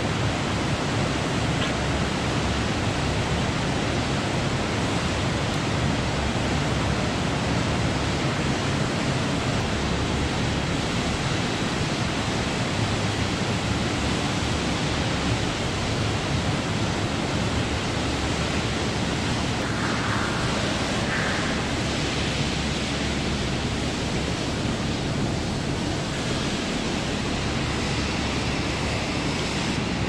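Steady rushing noise, even from low to high pitch, with no distinct events.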